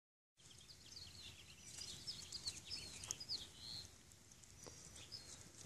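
Faint bird chirping: many short, high chirps in quick succession, thinning out after the first few seconds, over a low background hiss.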